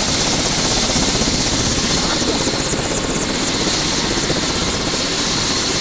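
Turbine helicopter running on the ground: a loud, steady roar of engine and rotors with a thin, steady high whine over it.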